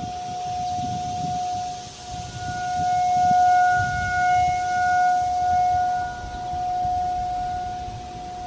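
Warning siren sounding one steady tone that swells louder in the middle and then eases off, with wind rumbling on the microphone.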